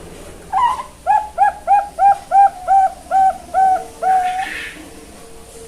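Young zebra dove (perkutut) cooing its song: an opening note, a run of about nine short evenly spaced coos at about three a second, then a longer closing note.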